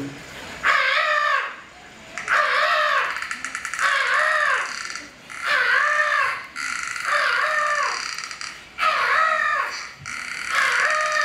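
A high-pitched wordless vocal cry, rising then falling in pitch, repeated about eight times at roughly one every second and a half.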